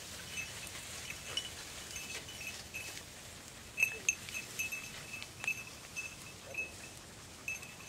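Small collar bells on the Andalusian podencos tinkling in short, irregular jingles as the dogs move through reeds and grass.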